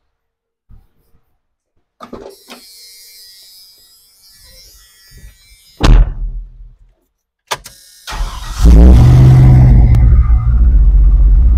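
A few clicks and a loud thump about six seconds in, then the LS-swapped 1991 Chevy pickup's V8 cranks briefly and starts about eight seconds in, settling into a steady, loud idle.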